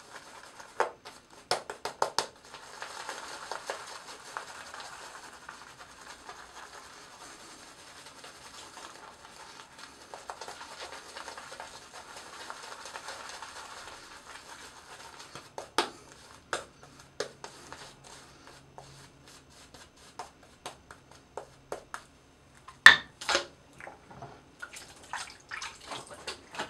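Shaving lather being cleaned off between razor passes: a steady soft hiss for about twelve seconds, then scattered small clicks and knocks, the loudest a sharp knock about 23 seconds in.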